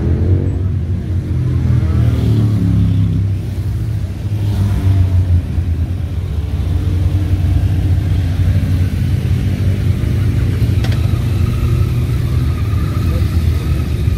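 Road traffic of motorcycles and cars passing close by, with a steady engine rumble. A motorcycle engine accelerates in the first few seconds, its pitch rising, and another rise comes about five seconds in.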